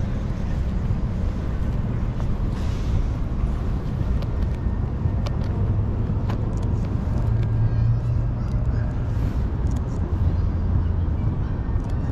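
Steady low rumble of outdoor city ambience, distant traffic, with a few faint sharp clicks scattered through it.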